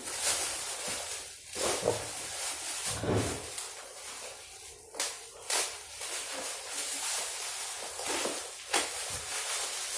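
Plastic packaging crinkling and rustling as a parcel is pulled and cut open by hand, with a few sharp clicks about halfway through and near the end.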